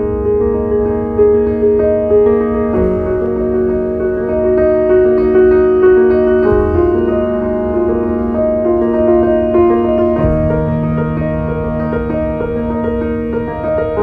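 Slow piano music: long held chords over a deep, steady bass, with the bass note changing about ten seconds in.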